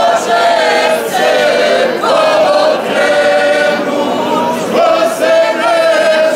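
Mixed group of men and women singing a folk song together without instruments, in long held notes that bend between phrases.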